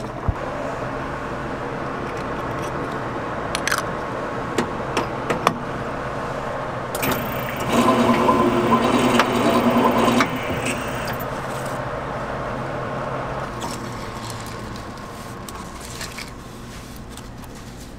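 A can-sealing machine runs for about three seconds, its motor whirring at a steady pitch as it seams a lid onto an aluminium drink can. Under it a steady machine hum continues, with a few light clicks before the seamer starts.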